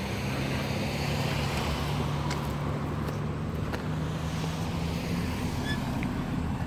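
An engine running steadily, a low hum with a few even tones over a haze of outdoor background noise.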